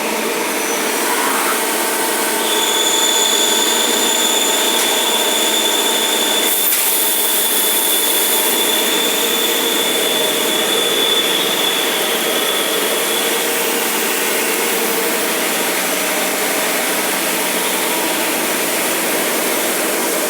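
CNC machine tool running: a steady mechanical noise with a high whine that comes in about two seconds in and dies away around thirteen seconds, and a short hiss around six to nine seconds in.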